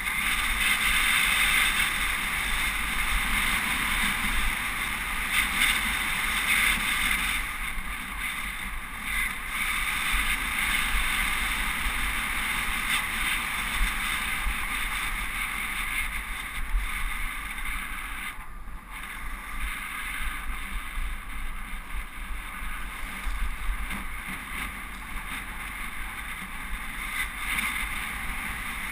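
Steady rush of wind and road noise on a helmet-mounted GoPro microphone while riding a road bike on asphalt, easing briefly about two-thirds of the way through.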